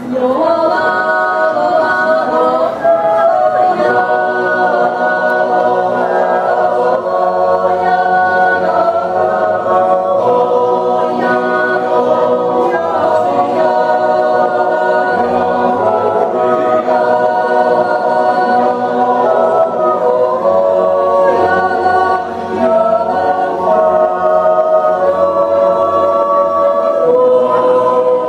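A mixed Swiss yodel choir of men's and women's voices singing a cappella in close harmony, moving through long held chords, with a brief dip for breath about three-quarters of the way through.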